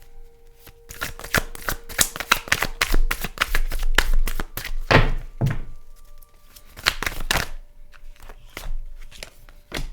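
Tarot cards being shuffled by hand: fast runs of papery card clicks and flaps, in two bursts with a short lull between.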